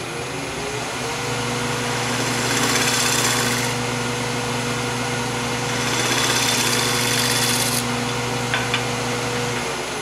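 Wood lathe motor humming as it comes up to speed, while a turning gouge cuts the spinning semi-green hackberry in two passes, each a few seconds of shaving hiss over the hum. The hum drops away near the end.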